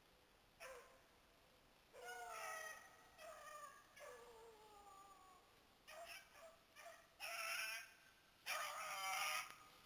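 Beagles baying faintly on a rabbit's trail: drawn-out falling howls, then short yips and two longer bays near the end.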